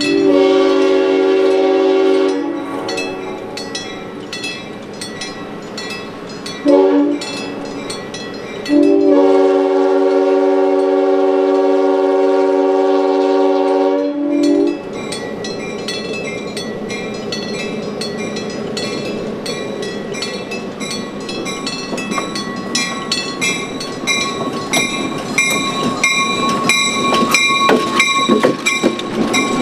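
A train horn sounds a long blast, a short one and another long blast as the train approaches a grade crossing, over the steady ringing of the crossing bell. Near the end the train rolls past close by, its wheels clattering over the rail joints and squealing.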